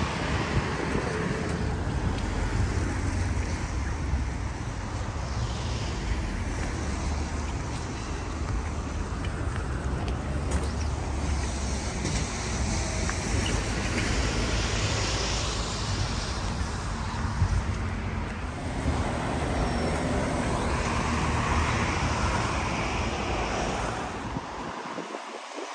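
Road traffic on a city street: a continuous rumble and hiss of passing vehicles that swells and fades several times as they go by.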